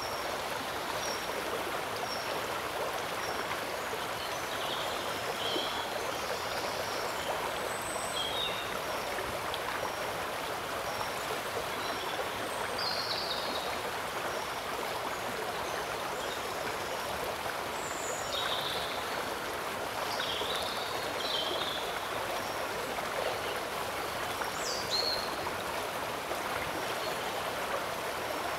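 Steady rush of flowing shallow water, with short high chirps now and then.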